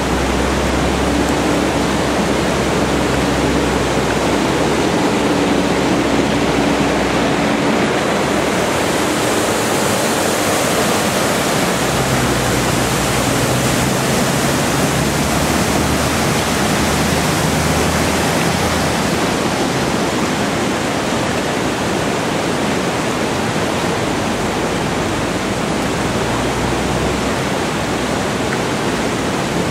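Floodwater rushing steadily across a road. A tractor drives through it, its engine a low drone under the water, and between about 8 and 19 seconds in its tyres throw up a bow wave that adds a loud splash.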